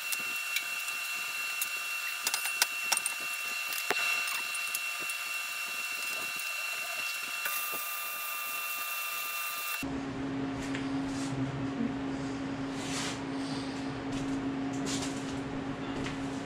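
Electric arc welding on a steel frame: a steady crackling, sizzling arc with small pops for about ten seconds, which then cuts off. After that comes a steady low hum with a few light knocks.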